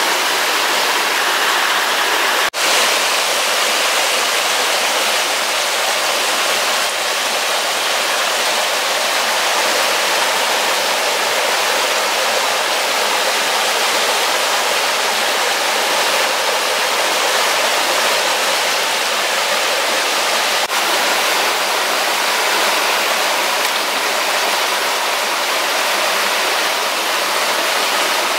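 Steady rushing of flowing water, like a nearby stream or small waterfall, even and unbroken apart from a brief cut-out about two and a half seconds in.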